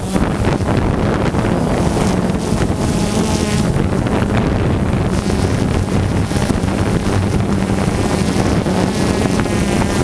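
Quadcopter's electric motors and propellers buzzing steadily in flight, heard from the camera it carries, with propeller wash and wind rushing over the microphone.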